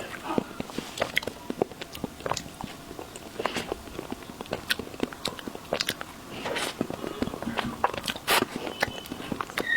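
Close-miked eating of a chocolate treat: irregular bites, chewing and wet mouth clicks, with many sharp little crackles throughout.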